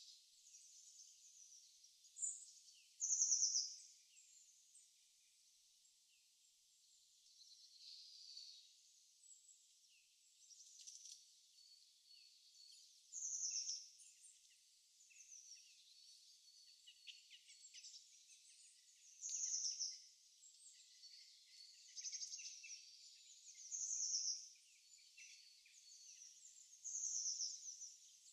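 Birds chirping: a short, high, falling call repeated every few seconds over a faint hiss.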